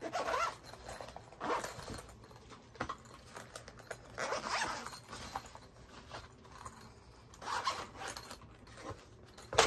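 Pistol case contents being handled and put aside: about six short rustling, scraping bursts, the sharpest near the end.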